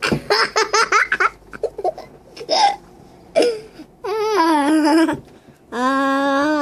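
A young boy laughing in a quick run of giggles, then short scattered vocal sounds and a high wavering 'aah'. Near the end a voice starts holding one long steady hummed or sung note.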